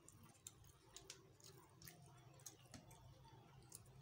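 Faint clicks and soft squishing of fingers mixing rice and curry on a steel plate, over a steady low hum.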